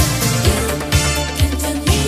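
1980s Italo disco dance track: a steady kick drum on every beat, about two a second, under synth bass and synthesizer chords.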